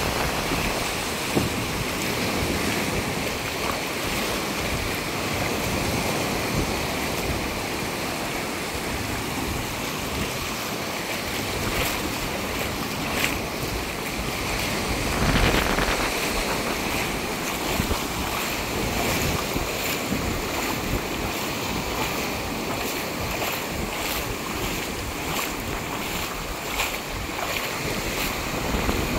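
Small surf breaking and washing up over a sandy beach, a continuous wash of water with wind gusting on the microphone. One wave comes in louder about halfway through.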